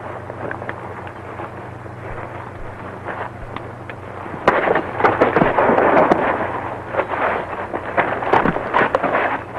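Hiss and steady low hum of an old film soundtrack. From about four and a half seconds in, a few seconds of louder rough noise with irregular knocks and clicks.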